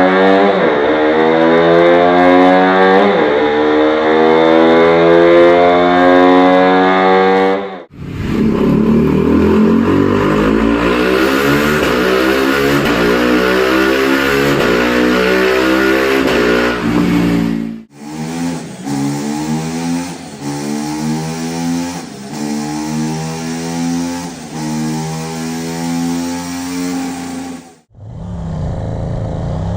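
KTM Duke motorcycle exhausts in three clips cut together, each loud engine accelerating, its pitch rising and then dropping back in repeated sweeps as it shifts up through the gears.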